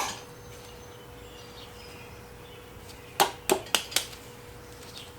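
Four quick hammer strikes on engine parts about three seconds in, roughly three or four a second, over a faint steady hum.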